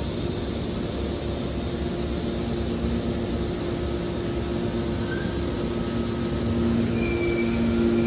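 Hydraulic scrap metal baler running: a steady mechanical hum from its hydraulic power unit, with two steady tones that grow louder over the last couple of seconds and a few brief high squeaks near the end.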